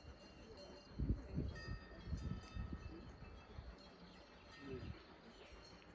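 Quiet rural outdoor ambience: wind buffeting the microphone in irregular low gusts, with birdsong and faint bell-like ringing.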